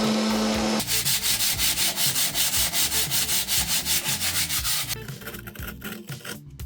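Sanding a fiberglass step: a steady motor hum cuts off about a second in, then rapid, even back-and-forth sanding strokes, about five a second, fade out near the end.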